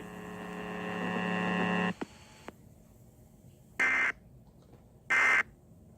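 A buzzing hum that grows louder for about two seconds and cuts off, then two short, identical bursts of EAS SAME data tones about a second apart: the End-of-Message code that closes an Emergency Alert System test.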